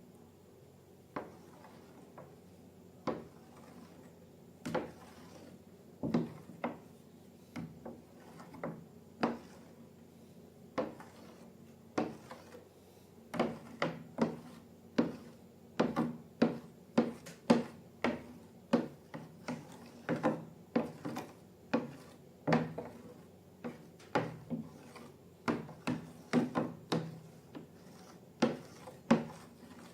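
A series of short, irregular clicks and taps, sparse at first and coming faster, about one or two a second, over the second half.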